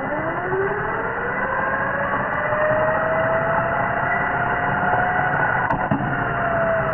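New replacement starter motor for a 2012 Infiniti QX56 bench-tested off jumper cables, spinning freely with a whine that climbs in pitch over the first few seconds, then holds steady and sags slightly near the end.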